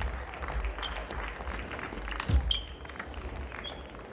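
Table tennis rally: the plastic ball clicking sharply off the bats and the table in quick succession, with shoes squeaking on the hall floor. Heavy footfall thuds come at the start and about two and a half seconds in.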